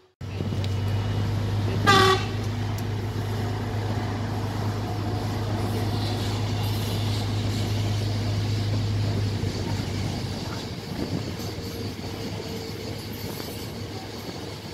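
Trenitalia Intercity train hauled by E.414 electric locomotives running through the yard with a steady low hum that eases off after about ten seconds. A short train horn toot sounds about two seconds in.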